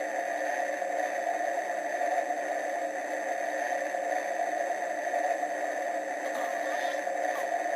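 Steady white noise: a continuous, even hiss that does not change.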